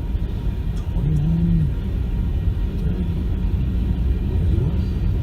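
Freight train rolling past, a steady low rumble.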